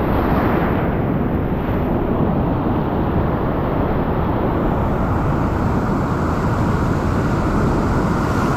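Ocean surf breaking and washing over a rock ledge: a loud, steady rush of churning water with a deep rumble, and wind buffeting the microphone.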